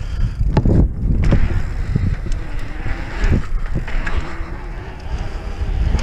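Mountain bike rolling fast over skatepark concrete: a steady rumble of knobby tyres on the concrete and wind on the microphone, with a few knocks as the bike goes over the ramp edges and transitions.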